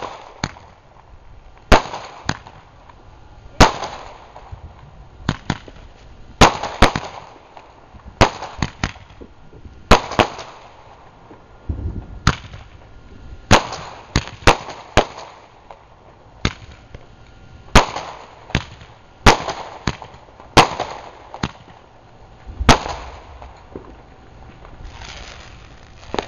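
Two Roman candles taped together firing at once: an irregular string of sharp pops, about one a second, as the tubes launch their stars.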